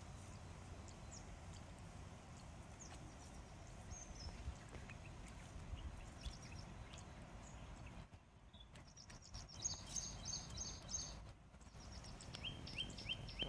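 Faint steady background noise, with scattered high chirps. In the second half a bird calls in two quick runs of short, high, repeated notes, about four a second.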